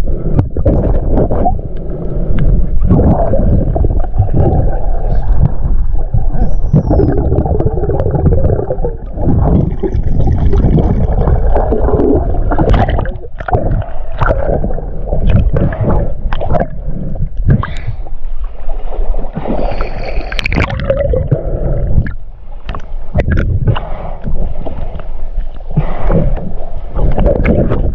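Underwater sound picked up by a diver's camera: a steady muffled rumble and gurgling of moving water and bubbles, broken by frequent short knocks and clunks.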